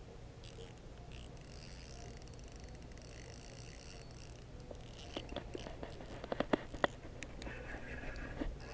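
Fishing reel working a snagged line: a faint, fast ticking whirr from the reel, then a string of sharp clicks past the middle and another short run of ticking near the end.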